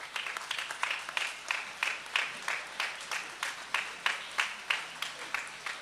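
An audience applauding: a steady run of hand claps, several a second, not loud.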